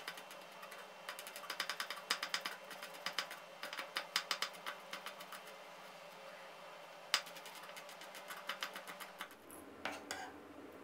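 Chef's knife slicing Thai chinda chillies on a wooden cutting board: quick runs of light taps as the blade meets the board, with short pauses between runs. The taps stop about a second before the end.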